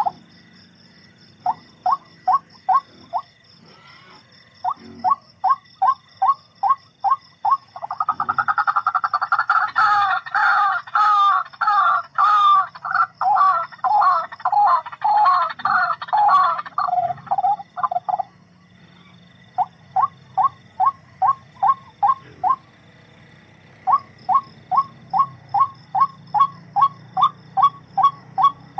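An animal calling in long series of short repeated notes, about four to five a second, with a dense stretch of overlapping, faster calls in the middle.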